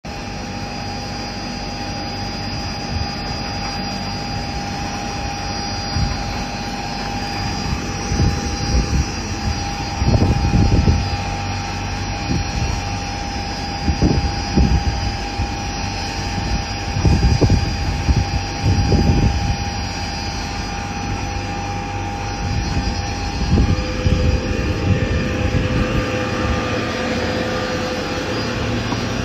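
Sawdust briquette extruder machine running: a steady motor drone with a held mid-pitched tone, broken by several louder low rumbling surges in the middle part.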